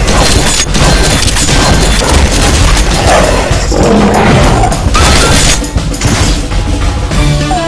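Animated-fight sound effects: a scythe-rifle firing with loud booms and repeated crashing impacts, over soundtrack music.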